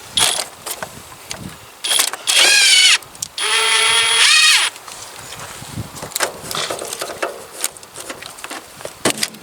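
Hercules cordless impact tool run in two bursts of about a second each, the first rising in pitch, undoing 10 mm nuts on car battery terminal clamps. Scattered clicks and knocks of the socket and tool being handled around them.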